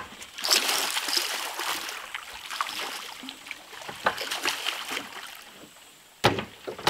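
A hooked fish thrashing and splashing at the water's surface beside the boat, loudest from about half a second in and then trailing off into smaller splashes, with a few sharp knocks near the end.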